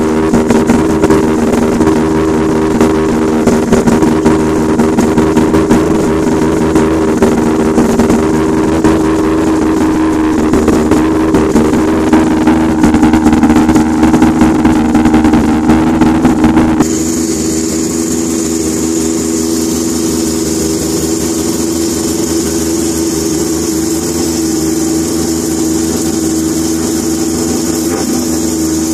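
Rebuilt three-rotor Mazda 20B rotary engine idling, the exhaust pulsing unevenly at the tailpipe. About two-thirds of the way in the sound changes abruptly to the engine heard from the engine bay, steadier and less loud, with a steady high hiss over it.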